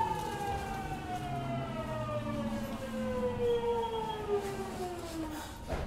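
Hitachi GTO-thyristor VVVF inverter on a Kobe Municipal Subway 1000-series train whining with a steadily falling pitch as the train slows under electric braking. The whine fades out near the end, followed by a click.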